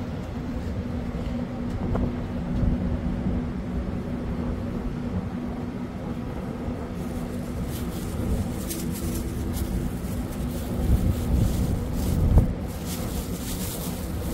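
Ship's machinery running with a steady low hum. Gusts of wind buffet the microphone in the second half.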